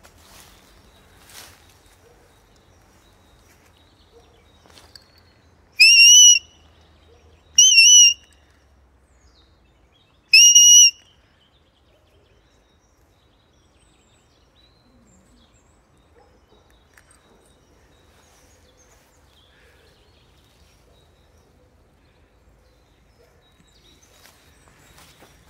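Three short blasts on a dog-training whistle, about a second and a half to two and a half seconds apart. Each is loud and shrill, about half a second long, rising at the start and then held with a slight warble. It is a handler's signal to a dog sent out ahead.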